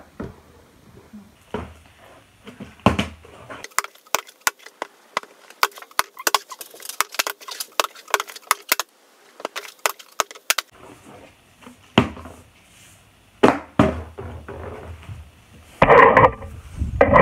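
Small plastic water bottle knocking and clattering on a hard floor during repeated bottle flips. There are scattered knocks and a dense run of sharp clicks in the middle, then a loud burst of noise near the end.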